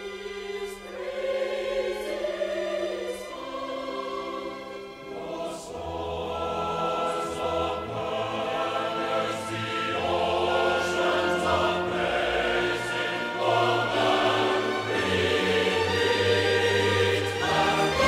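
Choir singing with full orchestra, played from a vinyl LP. It starts softer and swells to a louder, fuller sound from about five seconds in.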